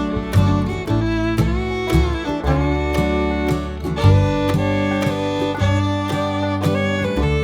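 Background music in a bluegrass or country style: a fiddle carrying the melody over strummed acoustic guitar with a steady beat.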